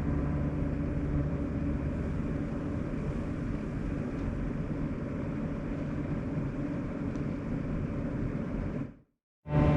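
Sharp AY-J40S-W air conditioner running with a steady hum and whine made of several held tones over a rushing noise: the abnormal noise that persisted after repair. The sound cuts out briefly about nine seconds in, then comes back.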